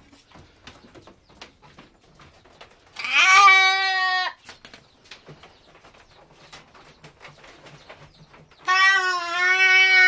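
Goat bleating twice, each bleat a long wavering call of over a second, the first about three seconds in and the second near the end. It bleats as a rubber castration band is worked onto its horn to remove it.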